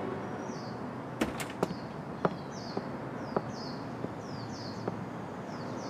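Hard-soled footsteps clicking at an uneven walking pace, about eight steps, while a small bird chirps over and over in short falling chirps.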